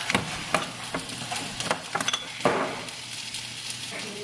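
Hand-held salt grinder cracking pink Himalayan salt over a plate, a run of sharp gritty clicks, over a steady hiss.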